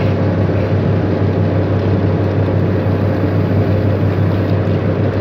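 Boat engine running steadily, with a low, even drone, as the boat tows an oil-spill containment boom on lines, over a wash of water and wind.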